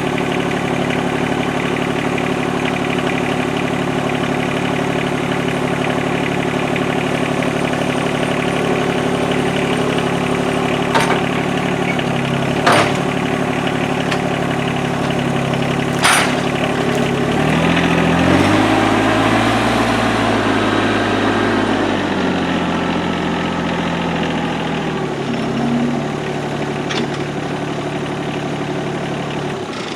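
Small gasoline engine of a Norwood LumberMate LM29 band sawmill running steadily, its pitch dipping for a few seconds about two-thirds of the way in before coming back up, with a few sharp clicks. The engine shuts off at the very end.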